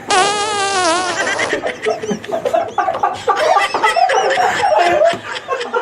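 A fart sound effect: a buzzy, wobbling blast about a second and a half long. It is followed by people snickering and laughing.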